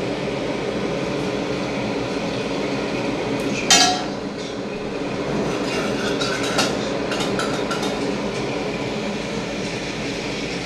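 A sharp, ringing clink of metal kitchen tongs against a ceramic serving plate about four seconds in, followed by a few lighter clinks of kitchenware, over a steady background hum.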